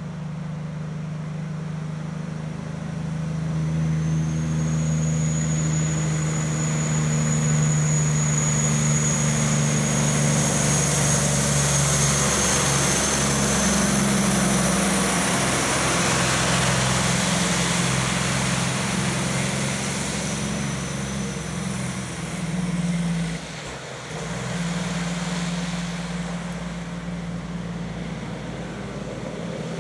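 A diesel cab-over truck pulling a refrigerated trailer comes up and passes close by on a wet road. Its engine runs with a steady low note, a high whistle sounds for several seconds as it nears, and the tyre hiss on the wet surface is loudest as it goes past. Near the end another heavy truck's engine runs.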